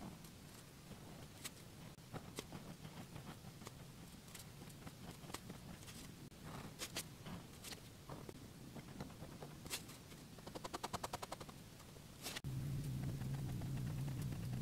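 Fibre-tip pen (Monami Plus Pen 3000) scratching and tapping on paper in short strokes, with a quick run of about ten taps a second about two-thirds of the way through. Near the end a steady low hum cuts in, louder than the pen.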